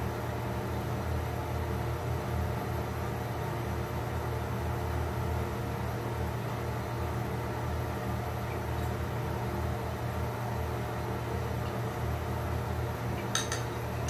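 Steady low mechanical hum of a running motor or appliance, unchanging throughout, with a short click near the end.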